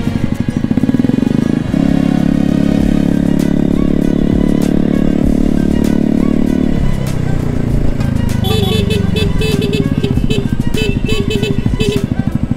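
Motor scooter engines running in a group ride, a steady drone that holds for several seconds and then drops in pitch about seven seconds in as the throttle eases off.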